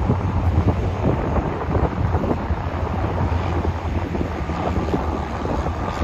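Strong wind buffeting the microphone: a rough, gusting rumble with frequent low thumps.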